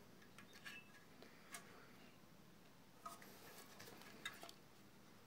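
Near silence with scattered faint clicks and taps, the sharpest about four seconds in, from hands gripping and turning a 15-inch PA speaker driver's frame.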